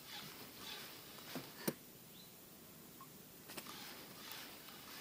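Faint handling of a spinning rod and reel being worked on a retrieve: two short spells of soft rustling, with two sharp clicks about a second and a half in.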